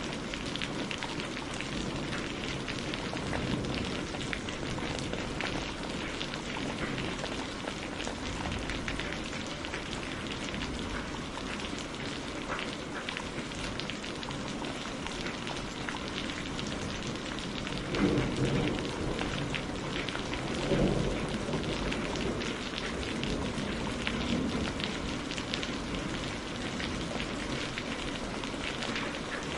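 Heavy rain falling steadily, with thunder rumbling twice about two-thirds of the way through, a few seconds apart.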